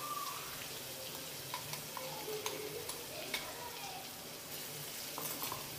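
Garlic, ginger and green chilli paste frying in hot oil in a kadai: a steady sizzling hiss with scattered sharp crackles and pops.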